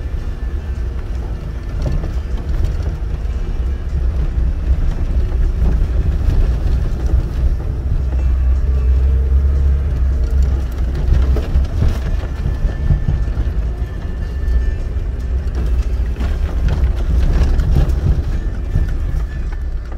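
Off-road vehicle driving over a rough, leaf-covered dirt track, heard from inside the cabin: a steady heavy low rumble of engine and running gear, with a few knocks and rattles from bumps in the track.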